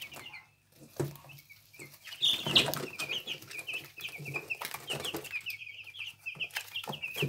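A brooder full of week-old Arbor Acres broiler chicks peeping, many short high cheeps overlapping without a break. A brief louder rustle comes about two and a half seconds in.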